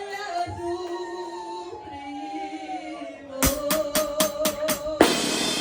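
A banda plays live, opening a song: a held note slides slowly down, then sharp drum strikes come about five a second under a steady sustained note. Near the end the whole band comes in loudly.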